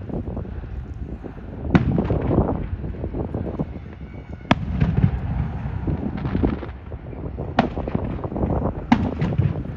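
Aerial fireworks shells bursting: four sharp bangs a few seconds apart, each followed by a rumble and scattered crackling.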